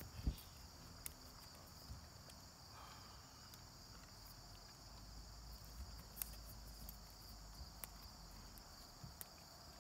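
Crickets chirring steadily and faintly in a high band, with occasional faint thuds from a horse walking on grass and one sharper thump just after the start.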